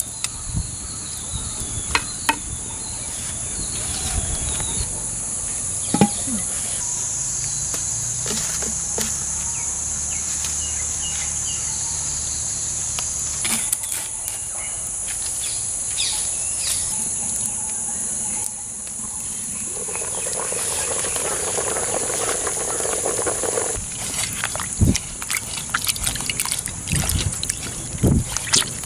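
A steady, high-pitched chorus of insects, with scattered knocks and scrapes of a spoon and lid on a clay cooking pot. Near the end, water sloshes as a hand swishes in a clay basin.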